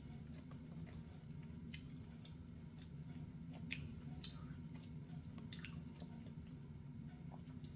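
A person quietly chewing pepperoni pizza, with a few short wet mouth clicks and smacks, over a steady low hum.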